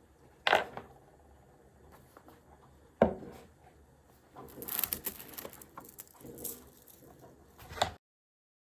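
Everyday handling noises: two sharp knocks, one about half a second in and one about three seconds in, a stretch of rustling, and a last click just before the sound cuts off.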